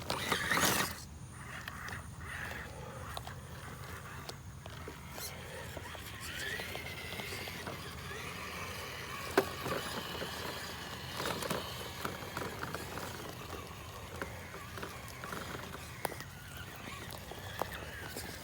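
Electric motor and gears of an RC rock crawler whining as it drives, the whine rising and falling, with scattered clicks and knocks of the truck on the trail; the sharpest knock comes about nine seconds in.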